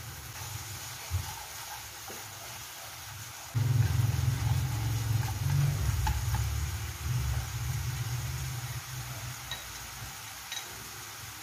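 Diced tomato and onion sizzling in oil in a frying pan, a steady hiss. From about three and a half seconds in until about nine seconds a loud low rumble rises over it as the vegetables are stirred with chopsticks, with a few light clicks.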